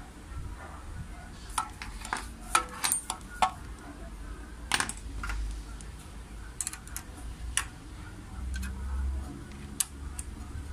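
Light metallic clicks and clinks of steel keys being handled in the clamp jaws of a key-cutting machine as a blank is fitted, in irregular clusters over a low steady hum.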